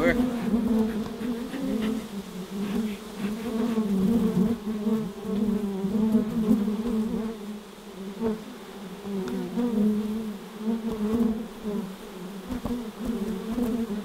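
A mass of honey bees buzzing around an opened hive, a steady, wavering hum: the colony is agitated and defensive because its brood nest has been broken into. A few light knocks come through now and then.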